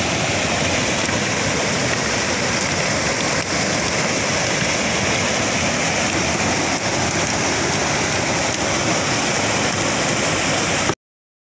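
River rapids pouring over rocks: a steady, loud rush of white water that cuts off suddenly about eleven seconds in.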